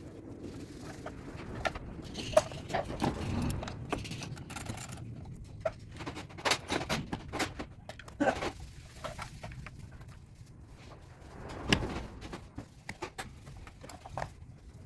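Irregular metallic clicks, knocks and clatter of hand tools working on an engine as it is taken apart.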